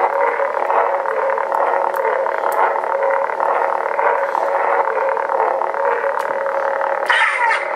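Lightsaber sound-board hum from a saber hilt's 20 mm bass speaker: a steady electronic buzz. Near the end it turns louder and brighter, with gliding tones.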